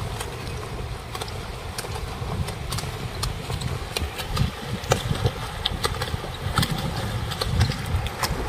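Many swimmers splashing, arms and kicking feet slapping the water in quick irregular strokes, over a steady low rumble.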